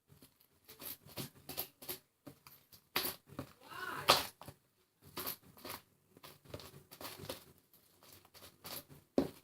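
Sticky, lightly activated homemade slime being squished and pulled apart by hand with beads worked into it: irregular wet clicks, pops and tearing sounds.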